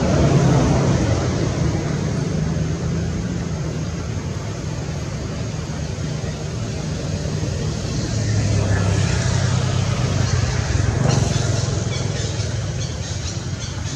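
A motor engine running steadily, a low hum that drops in pitch about eight seconds in.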